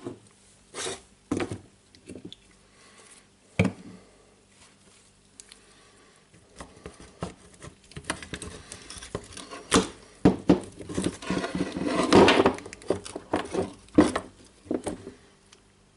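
Plastic housing and metal gear case of a Milwaukee M18 FID2 impact driver being handled and fitted together during reassembly: scattered clicks and knocks, with a busier stretch of rattling and scraping about two-thirds of the way through.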